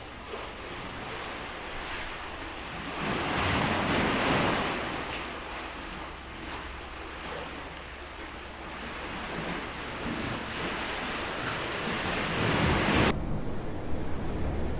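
Sea surf surging into the cave's narrow rock channel, a rushing wash that swells loud about three seconds in and again near the end. It cuts off suddenly near the end to a steadier rush of surf.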